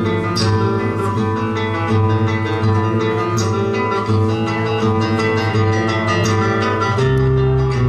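Live guitar duo, a nylon-string classical guitar and an electric guitar, playing a fast piece of rapidly plucked notes over a steady bass line. A deeper chord rings out near the end.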